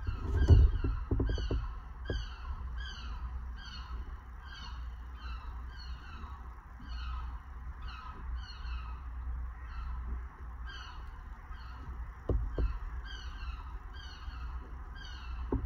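A bird calling over and over in quick short honks, about two or three a second, over a steady low rumble. A loud knock comes about half a second in, with two smaller knocks about twelve seconds in.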